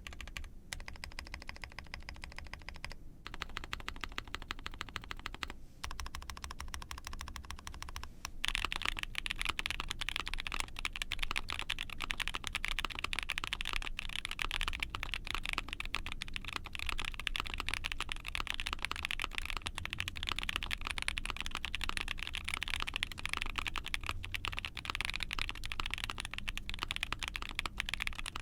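Typing on an ai03 Vega mechanical keyboard with a POM plate, lubed White Jade tactile switches and GMK keycaps: rapid, continuous keystrokes. The typing is lighter, with brief pauses, in the first third, then becomes louder and denser.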